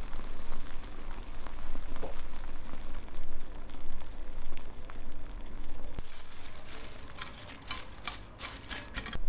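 Hot roasted nutria and vegetables sizzling and crackling in a metal roasting tray just out of the tandoor. Near the end come sharp crisp rustles as fresh spinach leaves are handled on a plate.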